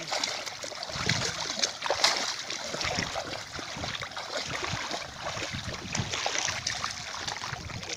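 Water sloshing and splashing as a net packed with bighead carp is dragged through shallow water, with many irregular splashes and the loudest one about two seconds in.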